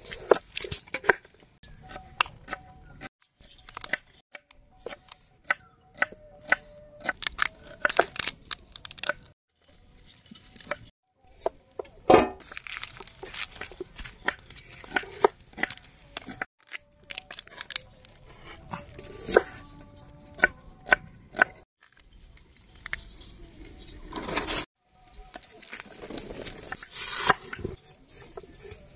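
Boiled crab shells being cracked and peeled apart by hand, with a knife cutting through yam, heard as irregular sharp cracks, snaps and cuts. There is a short lull twice, and the loudest snap comes about twelve seconds in.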